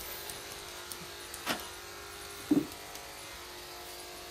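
Steady hum of a small electric motor, with a sharp click about a second and a half in and a short low thump, the loudest sound, about a second later.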